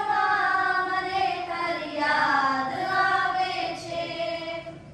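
A woman singing a devotional song to the guru in long held notes that glide up and down, fading out near the end.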